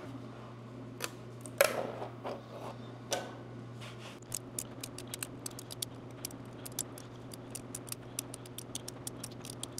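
Flush cutters snipping and breaking 3D-printed support material off a plastic print: a few scattered sharp clicks at first, then a rapid run of small snips from about four seconds in, over a steady low hum.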